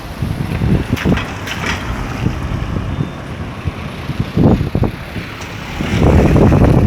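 Gusts of wind buffeting the microphone over street traffic, strongest near the end.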